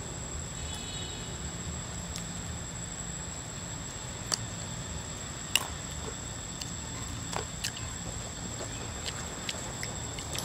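Outdoor ambience: a steady low rumble and a constant thin high tone, with a dozen scattered sharp clicks and ticks, the loudest about four and five and a half seconds in.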